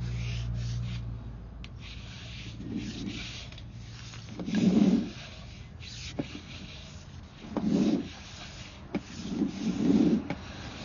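Sewer inspection camera's push cable rubbing and scraping as it is fed through the drain line, in repeated swells every two or three seconds, with a few sharp clicks and a low hum in the first second or so.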